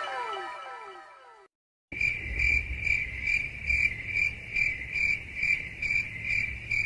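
Crickets chirping steadily, about two chirps a second: the stock "awkward silence" meme sound. It starts about two seconds in, after a brief gap, as the tail of a repeating falling tone fades out.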